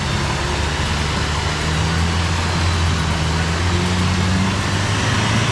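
An off-road 4x4's engine running hard and steady, its pitch rising a little through the middle, with a steady hiss over it.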